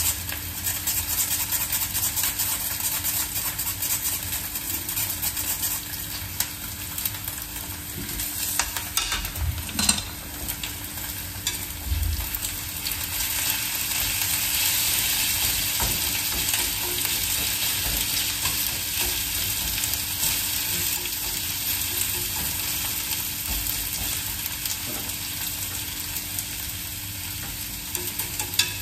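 Julienned potato frying in hot olive oil in a frying pan, a steady sizzle, while chopsticks stir and press the strands into a round. A few knocks and taps about eight to twelve seconds in.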